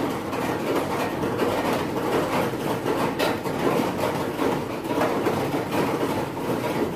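Steady rushing, machine-like noise with scattered light clicks.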